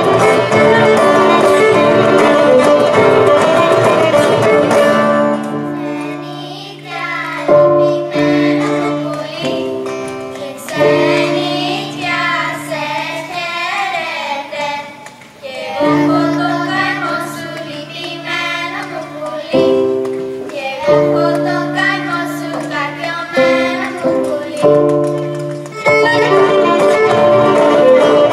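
Greek folk music from Thrace: a violin-led instrumental passage, then a group of children singing the song's verses in phrases over held accompanying notes from about five seconds in, and the violin-led instruments taking over again near the end.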